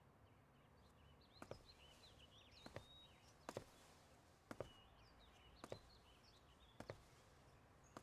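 Near silence: faint high chirping and soft double ticks about once a second.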